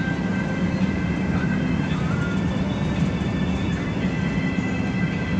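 Steady drone of an express bus's engine and road noise heard inside the moving bus, with faint music in the background.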